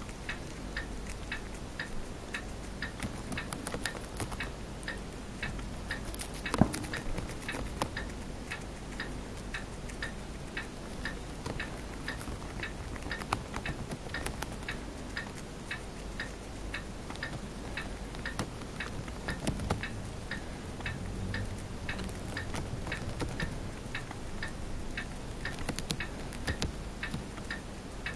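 Chinese dwarf hamster nibbling a crisp cabbage leaf: soft, regular clicks about two a second, with a few louder crunches, the loudest about six and a half seconds in.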